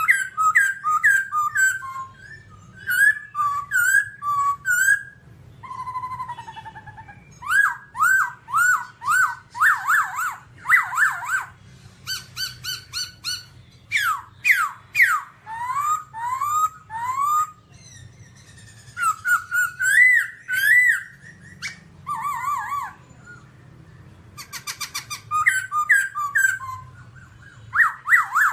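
Black-throated laughingthrush singing: loud, varied whistled phrases, each a run of repeated slurred notes, with short pauses between phrases.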